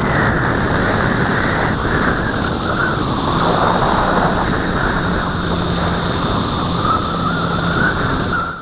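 Radio-controlled model aircraft in flight, heard from its onboard camera: a steady rush of wind over the microphone with a faint steady motor tone underneath.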